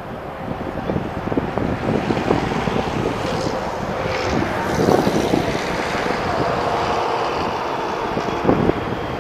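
Highway traffic going by, one vehicle swelling past a few seconds in, with wind buffeting the microphone.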